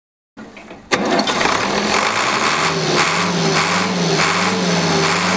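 Tractor engine being started with the key: a brief starter crank, then the engine catches about a second in and runs steadily with a low, slightly wavering hum, its exhaust stack puffing black smoke.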